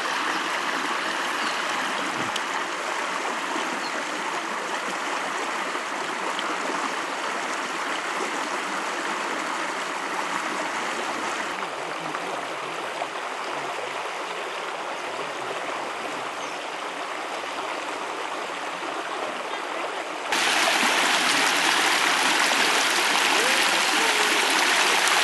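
Shallow stream running over rocks in small rapids: a steady rushing and gurgling of water. About 20 seconds in, the rush jumps suddenly louder and brighter.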